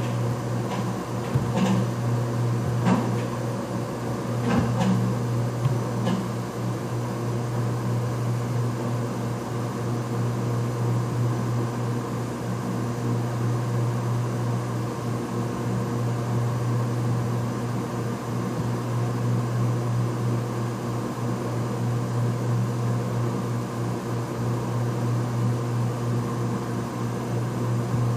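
Steady low mechanical hum from a ShopBot desktop CNC router, with a few short clicks or knocks in the first six seconds while the gantry is jogged into position.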